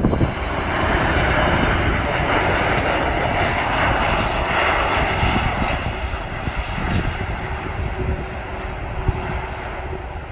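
Jet airliner engines running loud, a steady jet noise that eases off about six seconds in.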